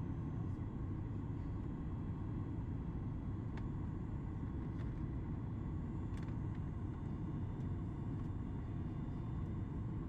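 Steady cabin noise of a Boeing 737 MAX 8 on approach: a low rumble of airflow and its CFM LEAP-1B turbofan engines, with faint steady whine tones above it and a few light clicks.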